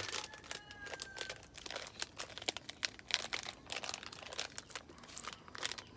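Crinkling of a small plastic instant-coffee sachet as it is handled and torn open: a run of quick, irregular crackles.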